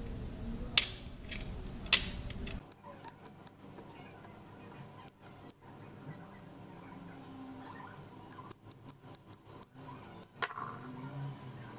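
A small utility knife working the rubber insulation off the thin inner wires of a phone charger cable: two sharp clicks in the first two seconds, then many light, irregular ticks and scrapes.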